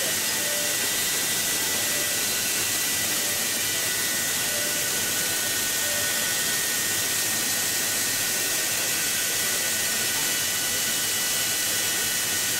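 Steady, even hiss with a few faint constant high whines, typical of die-bonding machinery and air handling in an LED chip workshop. It carries a few faint short pips.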